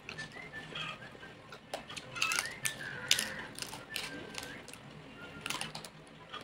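Crispy lechon (roast pig) skin crunching and crackling in the mouth during close-up chewing: a run of sharp clicky crunches, loudest about two to three seconds in and again about five and a half seconds in.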